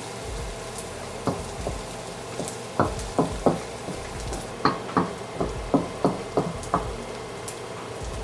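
Wooden spoon knocking and scraping against a stainless steel wok while stirring minced shallot and garlic, a string of irregular taps that come thickest in the middle, over a low steady sizzle of the aromatics frying in oil.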